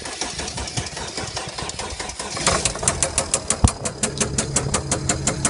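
Mercedes OM642 3.0 V6 turbodiesel in a Chrysler 300C CRD running rough, then settling about halfway in into a steady, regular knock of about four strokes a second, with one louder clunk a little after. It is misfiring with a knocking/clunking that the owner suspects is a spun bearing, worn big ends or piston rings.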